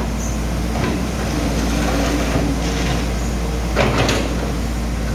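Hitachi 110 excavator's diesel engine running steadily, with a couple of brief metallic clanks about a second in and near four seconds in.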